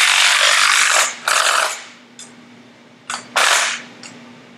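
Bosch cordless impact driver hammering as it runs bolts down into the cast iron of a Ford Model T engine's front plate, in bursts: about a second at the start, then a shorter one, then two more past the middle.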